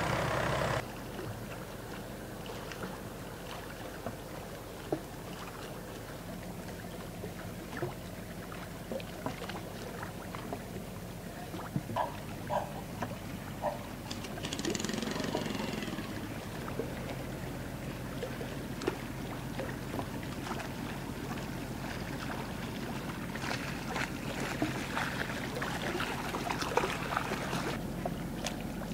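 Steady low drone of a ship's engine on the water, with scattered small clicks and a brief swell of louder, wider noise about halfway through.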